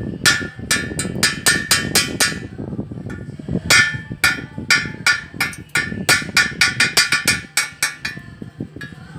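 A steel chipping tool tapping at fresh weld beads on a steel pipe: quick metallic clinks with a ringing tone, about four a second. They come in two runs with a short pause about two and a half seconds in, then fade to a few faint taps near the end.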